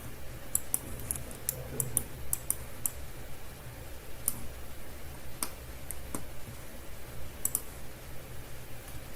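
Computer mouse and keyboard clicks, sharp and irregular, in a quick run over the first few seconds and then a few scattered single clicks, over a steady low hum.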